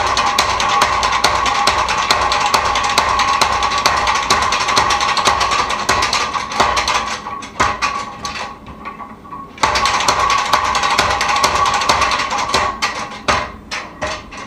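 Hammer striking steel during knife forging in a fast, even run of blows, several a second. The blows slow into a few separate strikes and pause about halfway, start again, and slow into separate strikes near the end.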